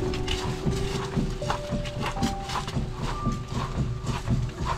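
Footsteps on dry leaf litter, about two steps a second, from a man walking with a canoe carried overhead, with background music playing over them.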